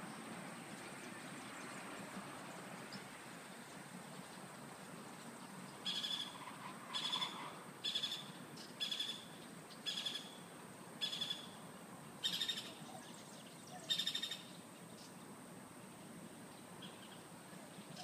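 A bird calling a series of about eight loud, short notes at the same pitch, roughly one a second, starting about six seconds in and stopping near fourteen seconds.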